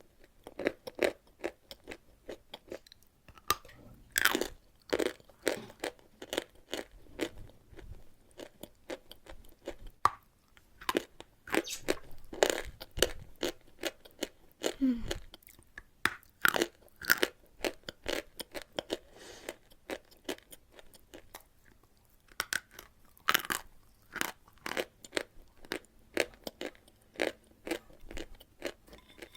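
Close-up crunching and chewing of chalk with a paste, many sharp crackles in runs of several a second, with a few louder bites.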